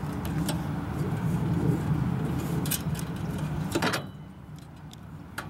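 Air hose inside the air compressor being cut, with handling noise: a steady low rumble and a few sharp clicks, the last and loudest about four seconds in, after which the rumble drops away.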